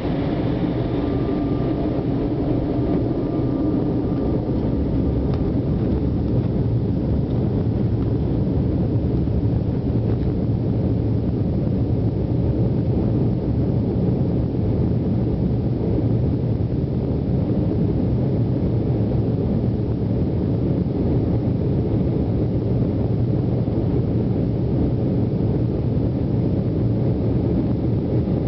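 Steady roar and low rumble of a jet airliner's engines and cabin, heard from a window seat while the plane is on the ground, with a faint whine in the first few seconds.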